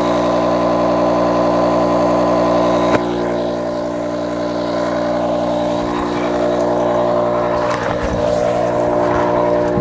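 A motor running at a steady pitch, starting abruptly and dropping slightly in level about three seconds in.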